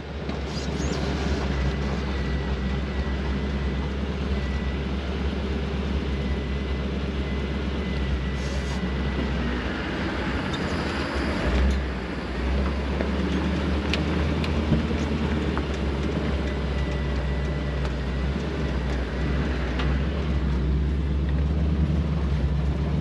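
Jeep driving along a dirt trail, heard from inside the vehicle: a steady low engine and drivetrain rumble with tyre and road noise, and a faint steady high whine through the first third.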